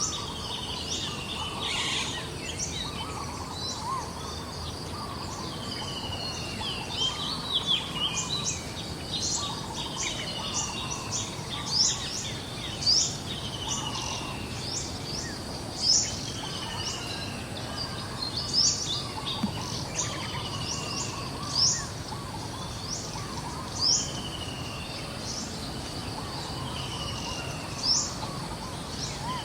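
Birds chirping and calling over a steady outdoor background hiss: many short, sharp high chirps, with a falling whistled note repeated every couple of seconds.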